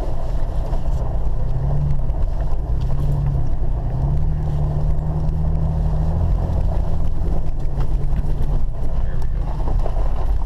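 Car engine and tyres heard from inside the cabin while driving on the ice: the engine drones at low speed, its pitch rising and falling as the driver accelerates and eases off, over a steady rumble of the tyres.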